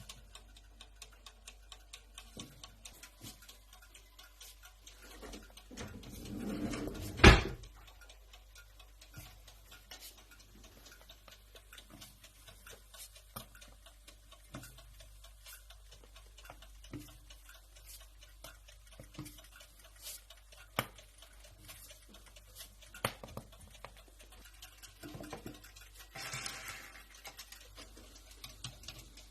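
Handling noises at an electric donut maker: scattered light clicks and taps, a brief rustle, then one sharp knock about seven seconds in, and another short rustle near the end.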